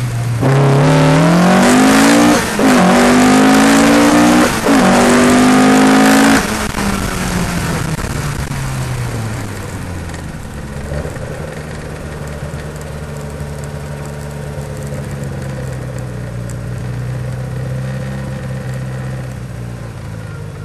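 Ford Escort Mk II rally car engine at full throttle, climbing in pitch with two quick upshifts in the first few seconds. The throttle is then lifted and the engine drops to a low, steady running note as the car slows.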